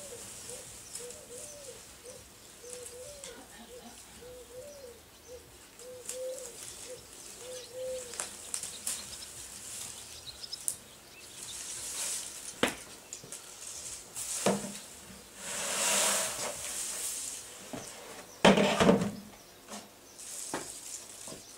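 A pigeon cooing over and over for about the first eight seconds. Then dry hay rustles as a bale is packed and tied in a wooden press box, with loud knocks of the wooden box about eighteen seconds in as it is lifted off the bale.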